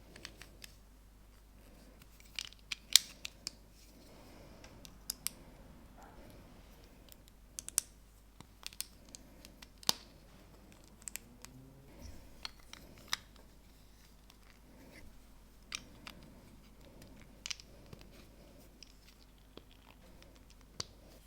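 Plastic LEGO bricks being handled and pressed together by hand: sharp clicks and taps at irregular intervals, a few louder snaps among them.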